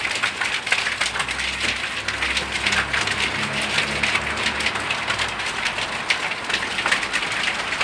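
A flock of domestic pigeons pecking grain at a feeder: a dense, continuous patter of quick beak taps on seed and feeder, with a brief wing flap.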